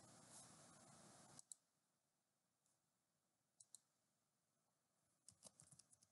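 Faint computer mouse clicks, a pair about a second and a half in and another pair near the middle, then a quick run of keyboard keystrokes near the end as a short word is typed. A low hiss stops just before the first clicks.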